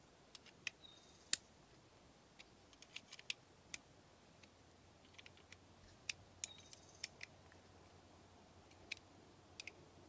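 Small hand ratchet with a T25 Torx bit tightening a screw into the vacuum pump housing: scattered sharp clicks in short irregular bursts, with near quiet between them.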